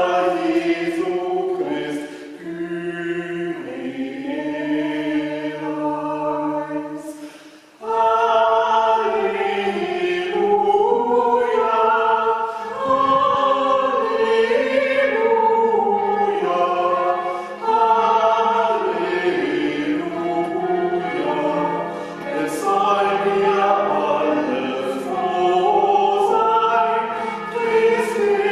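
Choir singing slowly in several voice parts. The singing thins out after a couple of seconds, fades almost away a little before eight seconds in, then comes back fuller and carries on.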